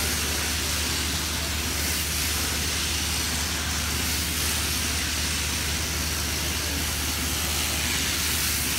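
Sheep-shearing handpiece on an overhead shearing plant running steadily while it cuts through the fleece: a constant mechanical hum under a high hiss.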